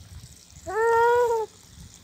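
A cat meowing once, a drawn-out meow of just under a second, rising at the start and then held.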